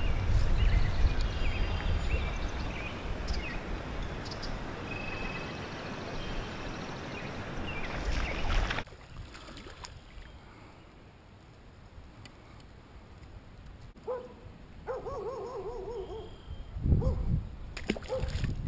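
Wind rumbling on the microphone, with birds chirping now and then. About nine seconds in the wind noise drops away to a much quieter outdoor background, with a few short pitched sounds and a low bump near the end.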